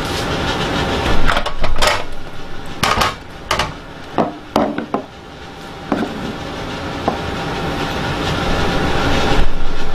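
Several clinks and knocks of kitchenware, utensils against dishes, between about one and five seconds in, over a steady rushing noise that grows louder toward the end.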